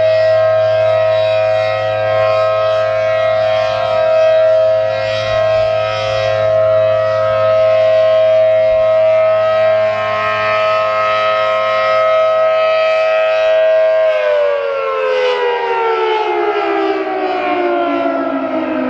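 ACA Allertor 125 electromechanical warning siren with a 10/12-port rotor sounding its steady dual-tone alert signal. About fourteen seconds in it begins to wind down at the end of the three-minute alert, its pitch falling steadily.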